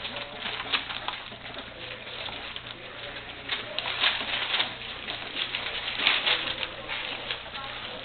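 A litter of English Springer Spaniel puppies eating together: a busy, continuous clatter of lapping, chewing and smacking, with small vocal sounds mixed in.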